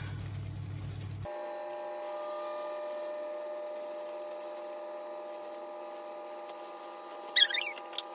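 A steady hum made of several fixed tones. Near the end comes a short, loud crinkle of the plastic flour bag being put down.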